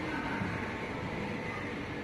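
Steady room noise of an indoor play area: an even hum with no distinct events.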